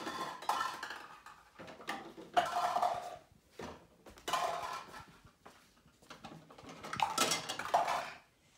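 Toy dishes and pretend food clattering and clinking as a child handles them, in a string of irregular bursts.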